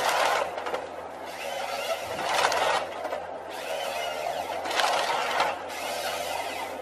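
Tree-cutting machine running with a steady motor sound, with a rush of noise about every two seconds as it cuts into wood.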